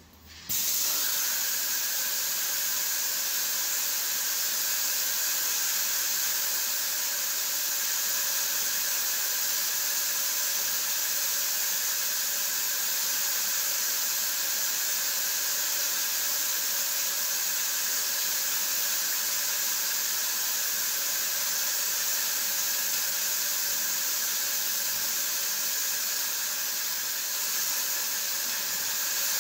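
Graco 395 airless paint sprayer's gun spraying paint onto a ceiling: a steady, loud hiss of paint atomising at the tip. It starts abruptly about half a second in as the trigger is pulled, then holds without a break.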